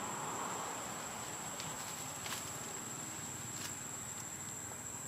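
A steady high-pitched insect call in forest, with a few faint clicks.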